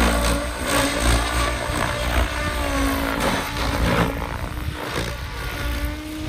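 SAB Goblin 700 electric RC helicopter flying aerobatics: its Scorpion brushless motor whines and the main rotor blades whoosh, the pitch rising and falling as it flips and swoops.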